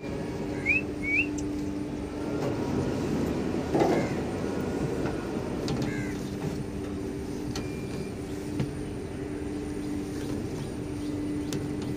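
Steady hum of a battery-electric passenger boat's motors and onboard systems: one low tone with overtones. Two short high rising chirps come about a second in, and a brief rush of noise about four seconds in.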